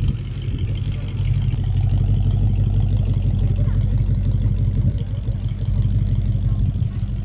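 An engine running steadily at a low, even pitch, with a rapid regular pulse.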